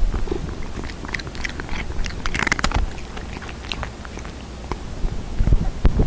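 A cat sniffing and nosing right at an electret microphone capsule, heard through the op-amp microphone amplifier: close, scattered clicks and crackles of its nose and mouth on the mic, with a few low thumps near the end as it bumps the capsule.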